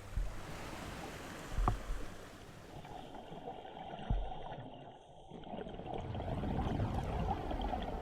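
Muffled water noise picked up underwater, with a few short low thumps.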